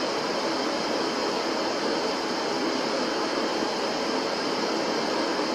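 Steady static noise: an even, unbroken hiss that does not change.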